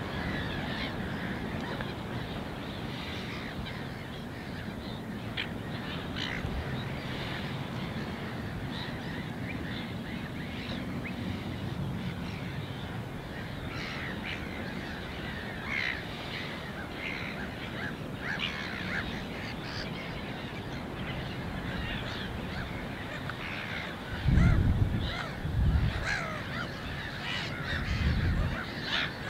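A flock of brent geese calling, many short overlapping calls running on throughout. Wind rumbles on the microphone in loud gusts near the end.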